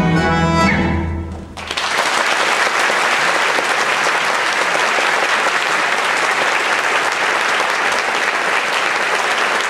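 Folk dance music ends about a second and a half in, and a theatre audience breaks into steady, sustained applause.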